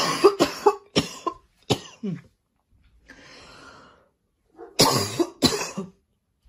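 A woman coughing in two bouts: a run of short coughs at the start, a breath between, and a second run of coughs about five seconds in.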